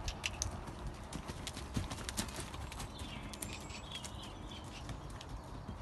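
Horse's hoofbeats on the arena surface, loudest at first and then fading as the horse moves away.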